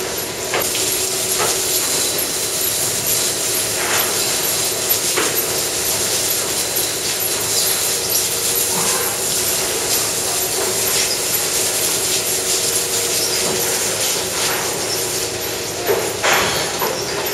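Milking parlour equipment running: a steady hum and hiss from the milking machines, with occasional metal clanks from the stalls and clusters and a louder clatter near the end.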